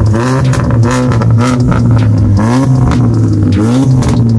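Volkswagen Beetle Turbo engine revved through an aftermarket dual exhaust: several quick revs, each rising sharply in pitch, over a steady low drone.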